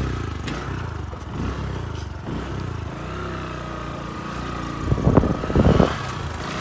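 Motorcycle engine running just after being started, a steady low hum with a couple of louder surges near the end.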